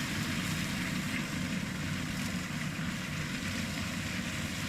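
Steady running of a John Deere 7720 tractor's diesel engine pulling a John Deere 115 flail mower, with the mower's vertically spinning knives shredding corn stalks.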